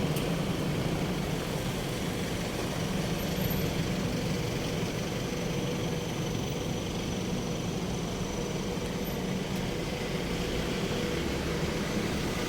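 Steady hum of vehicle engines running, with an even noise and no distinct events.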